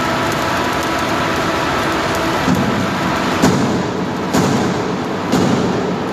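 Steady crackling hiss of arc welding inside a large steel tank. From about halfway, four sharp metal knocks come about a second apart, each booming in the tank.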